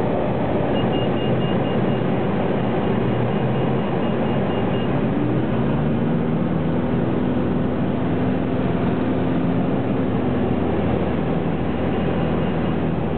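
Single-engine light aircraft's piston engine and propeller running loudly, heard from inside the cockpit during aerobatic manoeuvres; the engine note rises about five seconds in and then holds steady. A faint, high, pulsing beep sounds for several seconds near the start and briefly again near the end.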